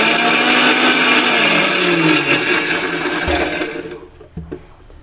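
Electric mixer grinder running a short burst to lightly crush whole garlic cloves with coarsely ground fennel seeds in its small steel jar. It runs loud and steady, then is switched off and winds down to quiet at about four seconds in.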